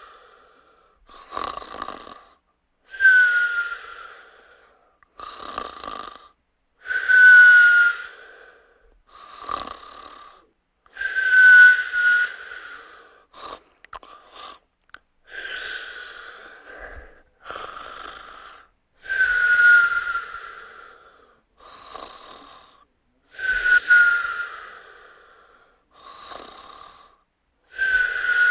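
Snoring with a whistle: slow, even cycles about four seconds long, each a loud noisy snore carrying a short falling whistle, followed by a quieter breath without the whistle. Briefly a little before halfway the breathing breaks into a few short stutters.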